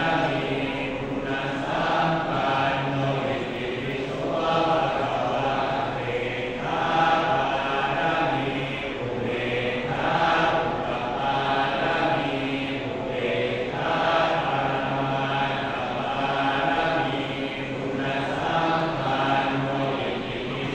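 Group of Thai Buddhist monks chanting in unison on a low, steady pitch, in long phrases broken by short pauses every few seconds. This is a consecration chant (pluk sek) recited over amulets to empower them.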